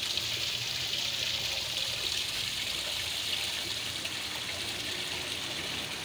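Small artificial rock fountain: water trickling and splashing steadily down its stone tiers into the basin.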